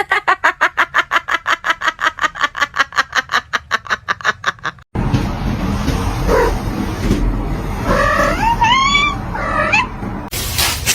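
Animal vocalizing: a fast, even run of short pitched calls, about seven a second. After an abrupt cut, a few calls that slide up and down in pitch.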